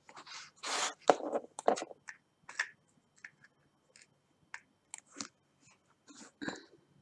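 A plastic tray of diamond-painting rhinestone drills rattling and scraping as it is moved, then sparse light clicks of metal tweezers picking drills out of the tray and setting them on the design.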